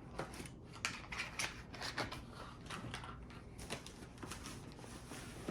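Faint handling of cardboard packaging: an irregular run of light clicks, scrapes and crinkles as a figure box and its protectors are worked loose.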